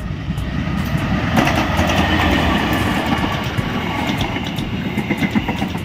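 CC203 diesel-electric locomotive hauling a passenger train past at close range: the locomotive's rumble swells about a second and a half in, then the coaches' wheels run by with a steady clatter of clicks over the rails.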